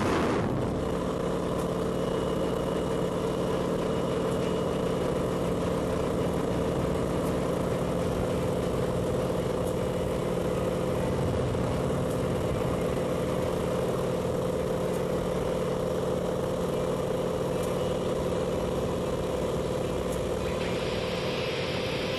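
Single-engine light aircraft's engine and propeller droning steadily, heard from inside the cabin. A rush of air dies away in the first half second, and a higher hiss of wind comes in near the end.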